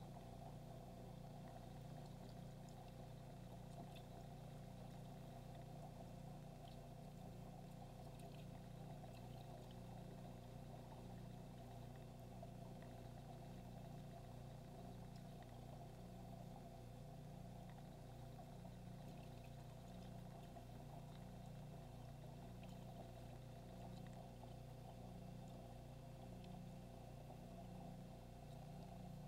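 Aquarium filter running: a faint, steady low hum with a light trickle of water and a few small ticks.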